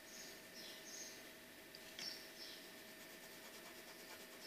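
Faint scratching of a pen tracing a heart outline on a small sheet of paper: a handful of short, high strokes, mostly in the first half and one more near the end, over a low steady hum.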